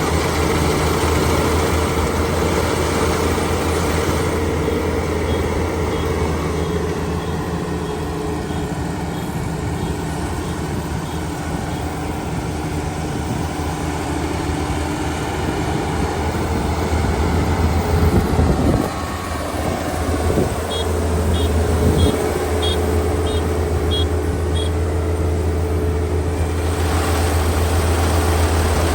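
Kubota ER572 combine harvester running, its diesel engine giving a steady drone. About two-thirds through, the level briefly dips and surges. Shortly after, a short run of faint high-pitched beeps sounds, about two a second.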